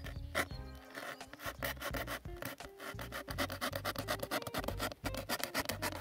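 Utility knife blade sawing through corrugated cardboard in rapid short strokes, a dry rasping scrape.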